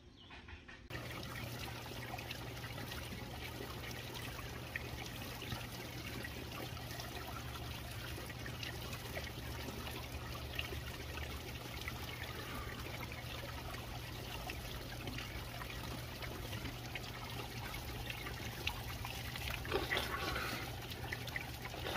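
Waterfall splashing and trickling in a steady rush of water, cutting in about a second in.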